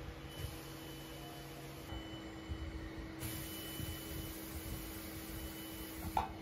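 Double-turret CNC lathe running: a steady mechanical hum with a few steady tones, whose pitch shifts about two seconds in. There is a short knock near the end.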